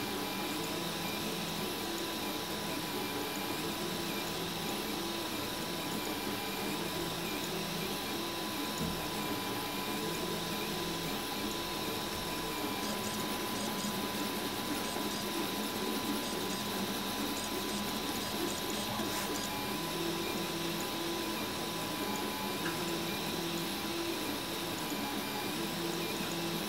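RepRap Huxley 3D printer running a print: its stepper motors whine in short tones that keep changing pitch as the print head and bed move, over a steady hiss.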